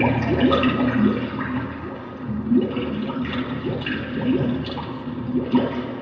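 Recorded water sounds, drips and bubbling with many quick rising plinks, played loud over an arena's loudspeakers as the backing track for a group routine.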